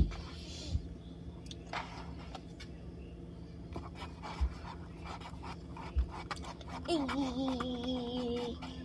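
Scattered small clicks and faint scrapes, then near the end a person's voice humming one wavering note for about two seconds.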